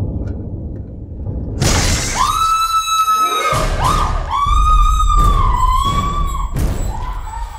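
A woman screaming in terror: a sudden loud start about a second and a half in, then several long, high-pitched screams with short breaks between them.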